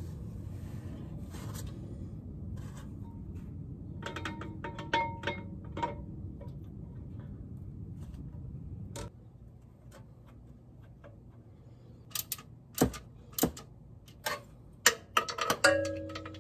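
Metal clinks as a clutch pressure plate is fitted over the clutch disc onto the flywheel, over a low steady hum that stops about nine seconds in. Near the end come sharp, irregular clicks of a hand ratchet running in the pressure plate bolts.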